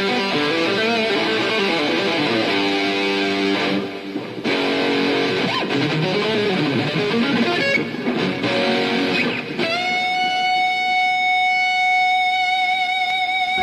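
Electric guitar played unaccompanied: a run of notes with string bends, then from about ten seconds in a single long note held with vibrato.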